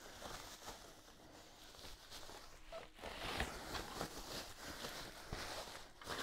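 Thin plastic packing bag rustling and crinkling faintly as it is worked up and off a boxed subwoofer, with irregular scuffs that grow busier about halfway through.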